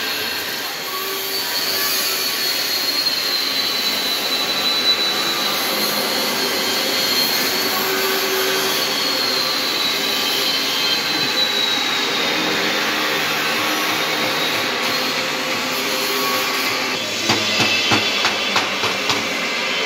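Angle grinder running steadily on steel, with a high whine that drifts slightly in pitch. Near the end comes a quick run of sharp clicks.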